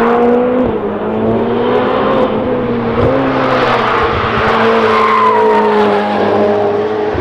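Race car engine sound effect: an engine held at high revs at a fairly steady pitch, with a hiss over it.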